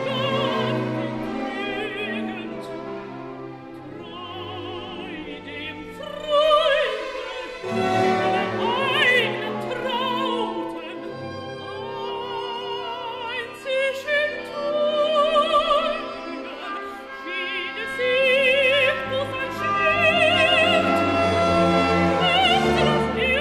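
Operatic singing with strong vibrato over an orchestra.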